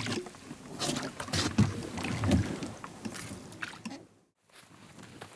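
Rowboat being rowed: the oars working in their metal oarlocks, with uneven knocks and strokes through the water. The sound fades out about four seconds in.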